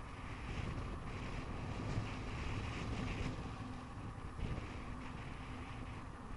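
Steady wind noise over the microphone mixed with the low rolling rumble of a bicycle riding along a paved road.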